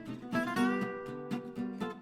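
Background music: an acoustic guitar being plucked and strummed in a steady rhythm.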